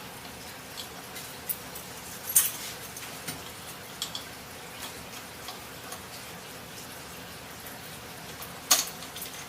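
Scattered light clicks and knocks of metal parts being handled on a truck door's window regulator, two sharper knocks standing out about two and a half seconds and near nine seconds in, over a faint steady hiss.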